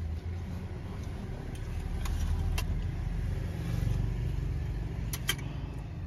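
Steady low rumble of a car engine, swelling a little in the middle, with a few sharp metallic clicks of a fork against a steel plate.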